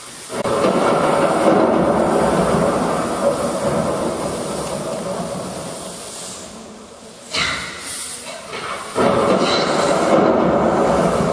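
Stage fog machine jetting smoke with a loud, steady rushing hiss. The hiss runs for about six seconds, breaks off, comes back in two short puffs, then runs again near the end.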